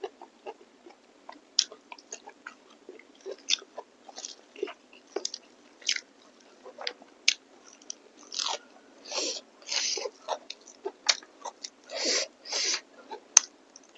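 A person chewing and smacking on mouthfuls of beef and beef innards curry: irregular wet clicks and crunches, with a few longer, louder smacking sounds in the second half.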